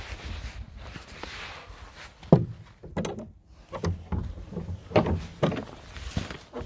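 Wooden yard gate being pushed open: a sharp knock with a short falling squeak a couple of seconds in, then a series of further knocks and rattles of the boards.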